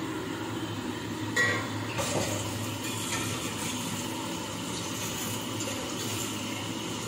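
Small-fish curry bubbling in oil in a steel kadai, a steady simmering hiss. A ringing metallic clink on the pan comes about a second and a half in, with a lighter knock just after.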